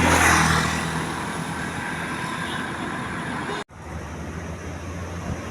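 Road traffic noise with the steady low hum of a large engine running. The sound drops out completely for a split second about two-thirds of the way through, then picks up again.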